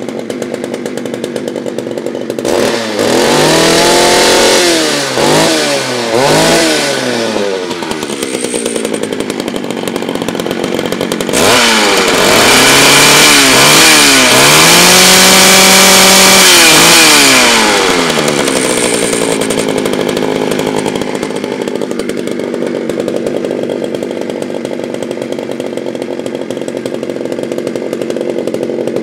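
1988 Homelite 330 chainsaw's two-stroke engine idling, revved up and down several times a few seconds in. It is then held at high revs for about six seconds before dropping back to a steady idle.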